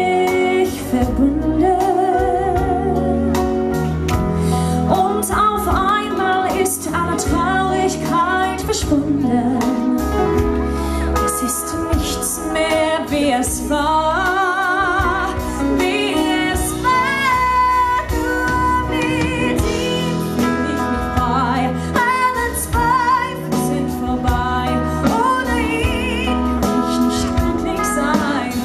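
A woman singing live into a handheld microphone, her held notes wavering with vibrato, backed by a live band of keyboards, electric guitar and electric bass playing through the stage PA.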